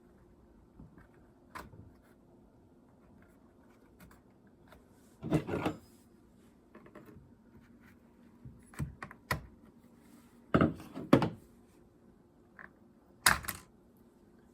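Hands handling the chainsaw's air filter and filter housing: scattered light clicks and taps, with a few louder knocks about five seconds in, twice around ten to eleven seconds, and once near the end.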